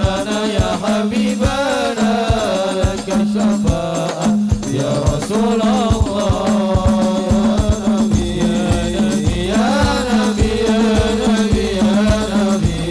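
Islamic sholawat devotional chanting by male singers, amplified through microphones and a sound system, over a steady rhythm of hand-beaten rebana frame drums. Deeper drum beats join about eight seconds in.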